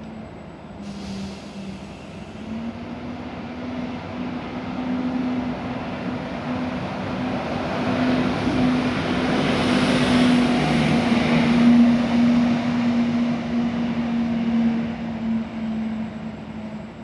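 The Carnival Celebration cruise ship's horn sounds one long, low, steady blast lasting over ten seconds, then cuts off near the end. Under it a rushing noise swells to a peak midway and fades away.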